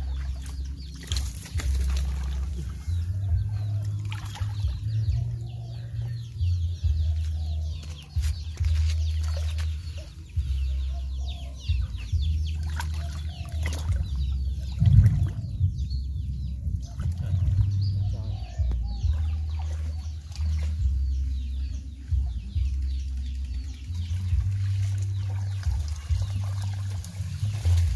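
Shallow muddy water sloshing and splashing irregularly as a man wades and gropes through it with his hands, feeling in the mud for snails and crabs, over a constant low rumble.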